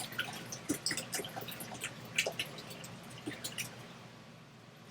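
Water poured from a gallon jug into an RV toilet bowl, with irregular glugs and splashes.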